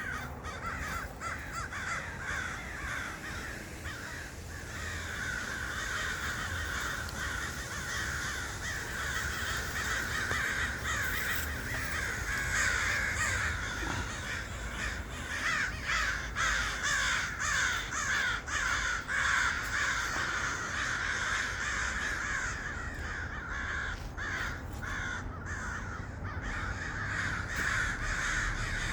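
A large flock of crows cawing all at once: a dense, unbroken din of many overlapping calls, with a low steady rumble underneath.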